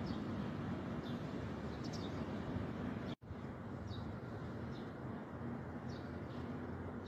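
Steady low outdoor hum with faint short, high bird chirps about once a second.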